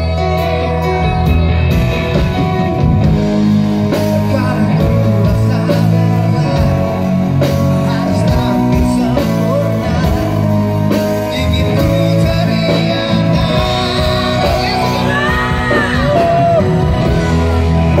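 A rock band playing live: a male lead singer over electric bass, electric guitars and drums.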